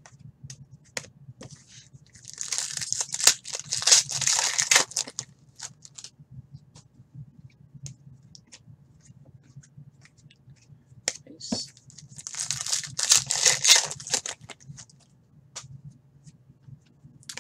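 Foil trading-card pack wrapper torn open and crinkled by hand, in two bursts of crackling, with light clicks of cards being handled in between.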